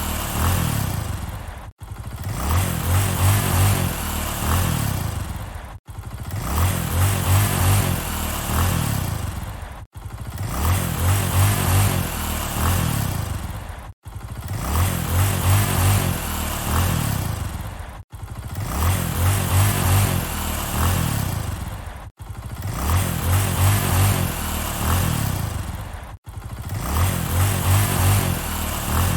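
Motorcycle engine running, its note swelling and then easing off in each pass. The same few-second recording repeats in a loop, with an abrupt cut about every four seconds.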